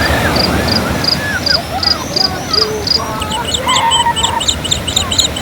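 Several birds calling: a run of short, high chirps about three a second, then quicker high trilled notes, with lower calls underneath, over a steady rushing background.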